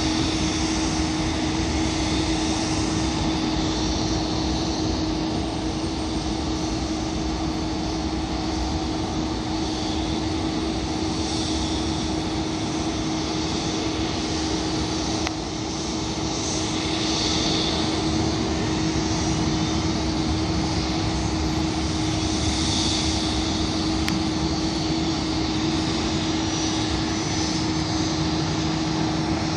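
Steady drone of jet aircraft on an airport ramp: an even rushing noise with one constant humming tone beneath it that holds its pitch, dipping slightly in level about halfway through.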